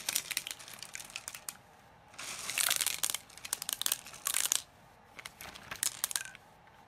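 Plastic pearl beads poured from a crinkling plastic bag into a tub of clear slime: quick runs of light clicks and crinkles, in about four spells with short pauses between.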